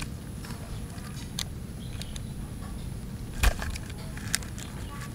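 Small plastic clicks and knocks from a toy fire truck's ladder and parts being handled and fitted together, with a sharper snap about three and a half seconds in and a lighter click about a second later, over a steady low rumble.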